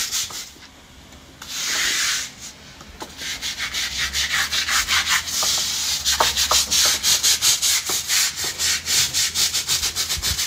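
Stiff deck brush scrubbing a wet, soapy concrete floor in quick back-and-forth strokes, about four a second, after a brief pause and one longer swish near the start.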